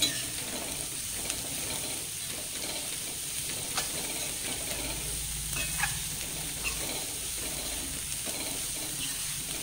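Chopped amaranth stems frying in an aluminium kadai, sizzling lightly as a metal spoon stirs and scrapes them around the pan, with a few sharp clinks of spoon on metal. They are cooking dry on a low flame with no water added.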